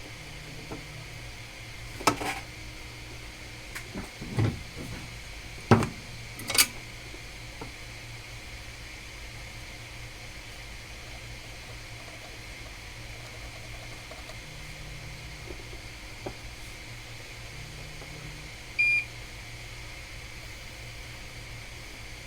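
Tools being handled at a repair bench: several sharp knocks and clicks in the first seven seconds, then a single short high electronic beep near the end, over a steady low hum.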